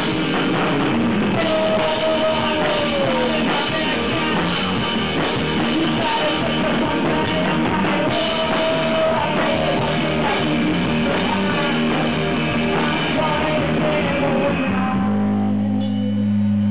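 Rock band playing loud in a rehearsal room: a Gretsch drum kit under electric guitar, with a high line sliding down in pitch twice. Near the end the drums stop and a low chord is left ringing.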